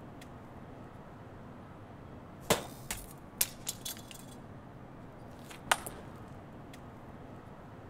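Sharp clicks of a table tennis ball being struck by paddles and hitting the paving: a loud hit about two and a half seconds in, four lighter clicks over the next second and a half, then another loud hit near six seconds.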